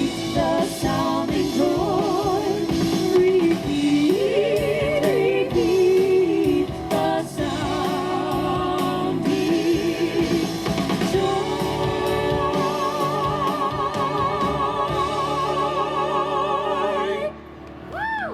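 Singers performing a traditional Christmas carol, the voices wavering with vibrato and ending on a long held final note that cuts off near the end.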